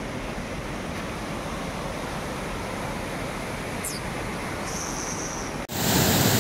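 Steady rushing of a fast mountain river's whitewater, which jumps suddenly louder about five and a half seconds in.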